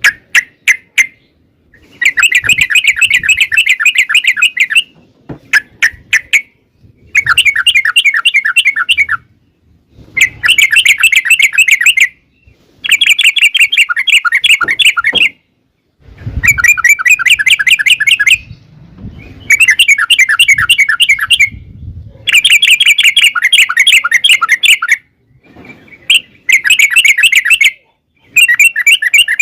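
Yellow-vented bulbul (trucukan) singing: loud phrases of rapid, bubbling repeated notes, each lasting a second or two up to about three seconds, given about ten times with short pauses between.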